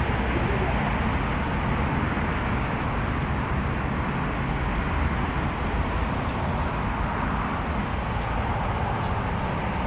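Steady outdoor road-traffic noise: a continuous low rumble and hiss of passing vehicles with no distinct events.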